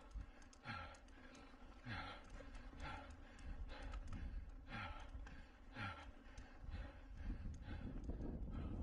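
Mountain-bike racer breathing hard under full race effort: a loud, hissing exhalation with a falling groan about once a second, over a steady low rumble.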